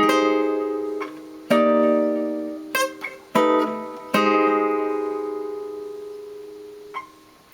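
Guitar playing a short sequence of jazz chords in chord-melody style, each chord plucked once and left to ring, to show the voice leading between them. The last chord fades out over about three seconds.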